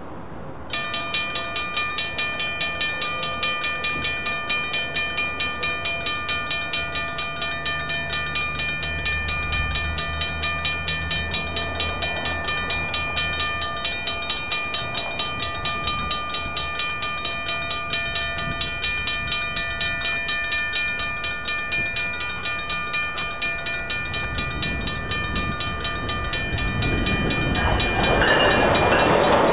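Railroad grade-crossing warning bell starts ringing about a second in, striking in rapid, evenly spaced rings as the crossing activates. Near the end an approaching train's rumble swells up loud under the bell.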